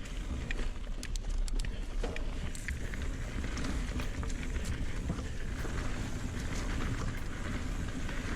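Mountain bike being ridden on a dry dirt trail. Wind buffets the helmet-camera microphone in a steady low rumble, and the tyres roll over dirt and stones, with scattered clicks and rattles from the bike.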